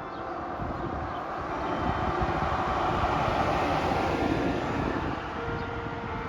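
A vehicle passing by: a rushing noise that swells to a peak about three seconds in and then fades, over the faint lingering hum of church bells.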